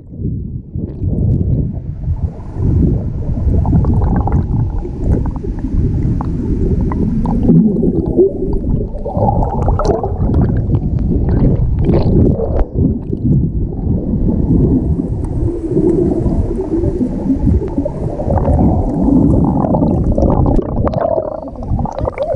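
Muffled underwater rumbling and gurgling of moving water and bubbles, picked up by a camera held under the surface of a river pool.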